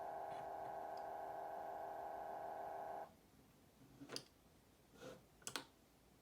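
Original 1984 Macintosh booting from floppy: a quiet, steady hum of several tones cuts off suddenly about three seconds in, followed by three soft clicks.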